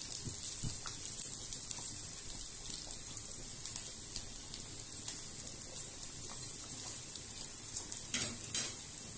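Thinly sliced onions frying in oil in a small pan, making a steady crackling sizzle. Two brief louder noises come near the end.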